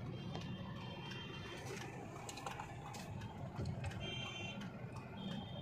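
Low rumble of a car heard from inside the cabin, with three short high-pitched beeps: one near the start, one about four seconds in and one near the end.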